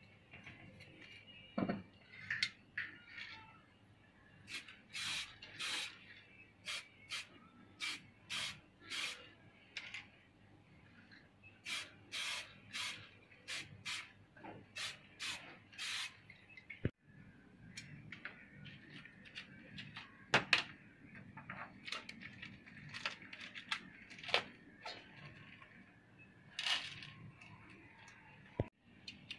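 Aerosol spray-paint can spraying red paint onto wooden fan slats in a long run of short hisses, about two a second at the busiest, thinning out later.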